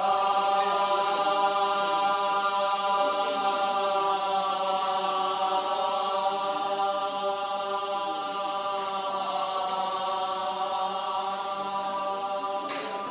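Buddhist monks chanting in unison on one long held note, steady in pitch, easing off slightly toward the end. A brief clatter comes near the end.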